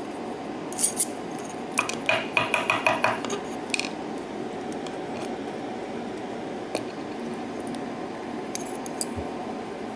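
Small metal clicks and light taps from lock pins and tools being worked out of a pin-tumbler lock cylinder, in a quick cluster about two to three seconds in and a few more scattered later, over a steady low hum.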